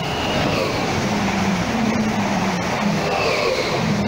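Greater Anglia Class 745 electric multiple unit passing at speed close by: a loud, steady rush of wheels on rail and air, with a low hum that wavers in pitch.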